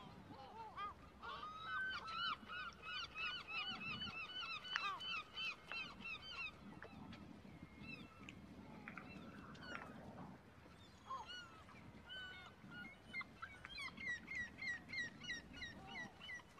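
Birds calling in two bouts of rapid repeated notes, about four or five a second: the first from about two seconds in to about six seconds, the second near the end.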